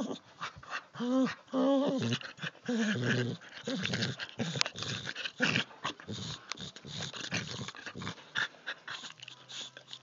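A dog vocalizing in a string of short pitched sounds, louder in the first few seconds, then fainter, mixed with sharp clicks toward the end.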